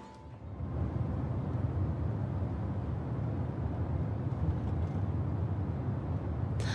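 Steady low rumble of a car's road and engine noise heard from inside the cabin.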